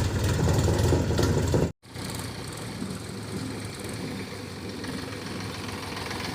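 Heavy diesel engine running loudly. About two seconds in the sound drops out for a moment, then comes back quieter and steadier.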